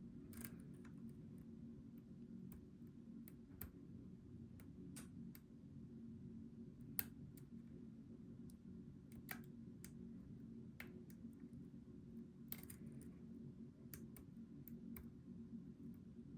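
Scattered faint clicks of lock picks working the pins of a Goal V18 lock held under tension, over a low steady hum; the sharpest click comes about seven seconds in.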